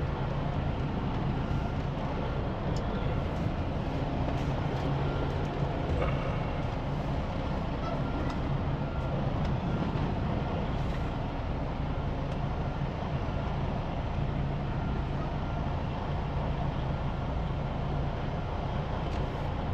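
Semi truck's diesel engine running steadily with a low, even hum.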